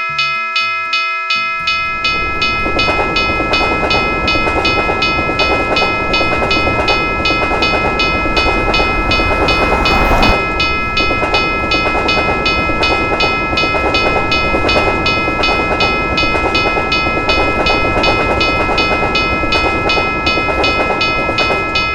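Railroad crossing bell ringing steadily, about two strikes a second. About two seconds in, a train starts passing the crossing, its wheels rumbling and clattering over the rails, briefly loudest near the middle.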